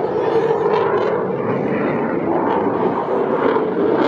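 Steady, loud jet noise from an RAF Eurofighter Typhoon in flight, its two Eurojet EJ200 turbofans.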